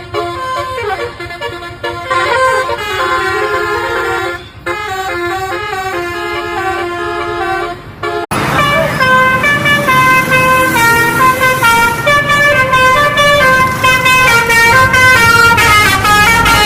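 Basuri telolet bus horn, a multi-trumpet musical horn, playing a tune of held notes that step up and down. About eight seconds in it cuts abruptly to a louder, brighter run of short notes.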